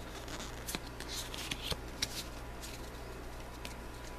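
Pokémon trading cards being handled and shuffled in the hands: a run of light flicks and rustles of card stock, mostly in the first half, sparser near the end.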